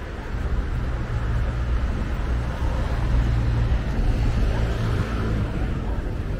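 Steady low rumble of passing city traffic, swelling a little about three seconds in.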